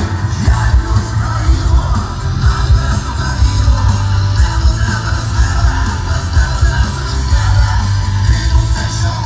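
Live rock band playing loudly through an open-air PA, heard from inside the crowd, with heavy bass and vocals over it.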